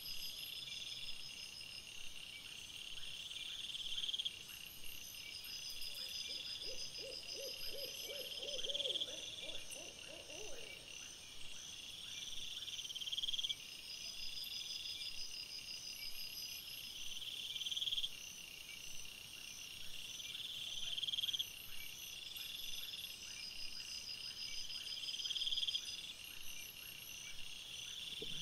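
A night insect chorus of crickets chirping in repeating swells that rise and fade every couple of seconds. About six seconds in comes a quick run of low, evenly spaced pulsed calls lasting some four seconds.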